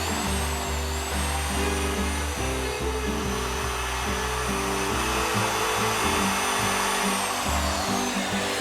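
Electric router cutting a hinge mortise into the edge of a wooden door inside a hinge mortising jig. Its high whine rises as the motor spins up, holds steady while it cuts, and falls away as the motor winds down near the end. Background music plays underneath.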